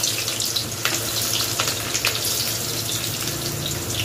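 Sliced onions sizzling in hot mustard oil in a kadai, a steady hiss with frequent small crackles.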